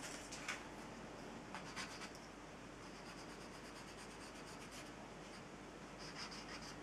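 Pencil drawing on paper: faint, quick scratching strokes in several short runs.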